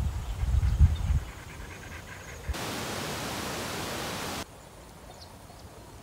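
Irregular low rumbling from wind and handling on a phone microphone during about the first second. Then an even, steady hiss cuts in abruptly a couple of seconds later and stops just as suddenly about two seconds on, leaving faint outdoor ambience.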